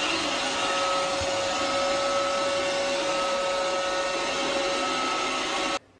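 Robot vacuum cleaner running: a steady whir of motor and suction with a steady hum, cutting off suddenly near the end.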